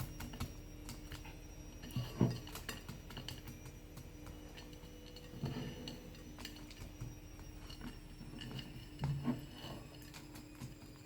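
Loose bird seed being handled and sprinkled in a bowl: scattered light clicks and ticks of seeds falling against the bowl and the seed-coated roll, with a few soft bumps.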